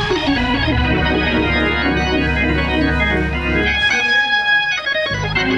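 Hammond-style church organ playing sustained chords over a held bass note, the chords changing a few times.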